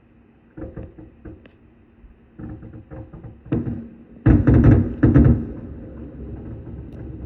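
Fireworks going off in a series of booms and bangs: a few scattered bangs at first, then quicker clusters, with the loudest rapid run of booms about four seconds in.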